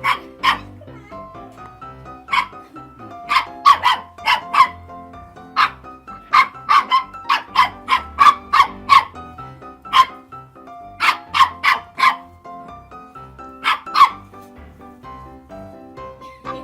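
A dog barking in short, sharp barks, sometimes singly and sometimes in quick runs of three or four, over background music.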